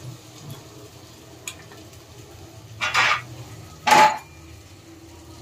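Kitchen utensil clattering against an aluminium pressure cooker while peas are added: a small click about one and a half seconds in, then two short, loud metallic scrapes about three and four seconds in, the second with a brief ring.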